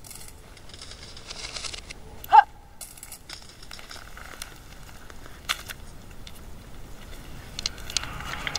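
Bare foot pressing and shifting on loose gravel: faint crunching with scattered small clicks of stones. One short, loud pitched chirp sounds about two seconds in.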